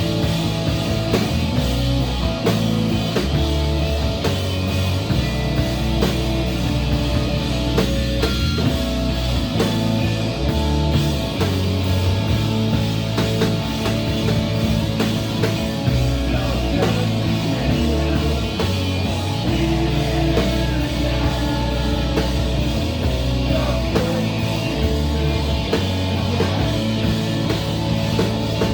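A live rock band playing a song, with electric guitar, bass and drum kit, at a steady volume.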